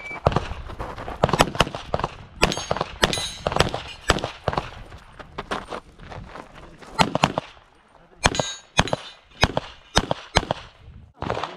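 Pistol shots fired in quick strings, many as close pairs, each crack followed by a short echo. There is a lull of about two seconds in the middle, then a final string of about eight shots.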